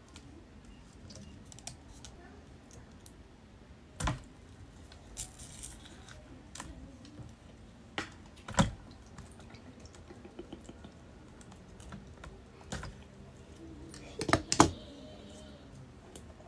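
Scattered sharp clicks and snaps from scissors cutting the rubber skin of frozen water balloons and the skin being pulled off the ice balls. The loudest is a quick pair of snaps near the end.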